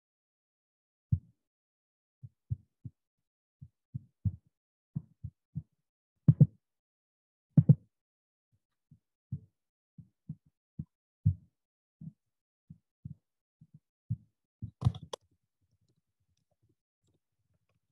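Dull low thumps at an irregular pace, roughly two a second, starting about a second in, with dead silence between them, as heard over a video-call line. A louder, sharper knock comes near the end.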